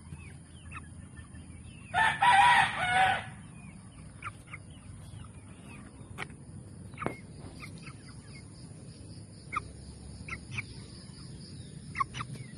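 A gamefowl rooster crows once, about two seconds in, for about a second. Short, high chirps come now and then for the rest of the time.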